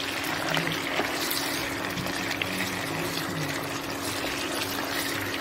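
Raw chicken pieces sizzling in hot oil in a nonstick kadai as a wooden spatula stirs them, with a few light scrapes and taps. A steady low hum runs underneath.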